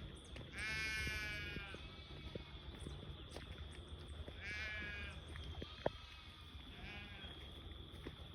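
Sheep bleating three times: a long, loud bleat about half a second in, a second bleat around four seconds in, and a shorter one near the end.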